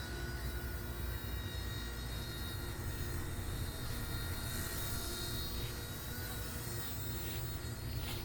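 Firefox C129 micro RC helicopter's motor whining steadily in flight, with a low rumble beneath it.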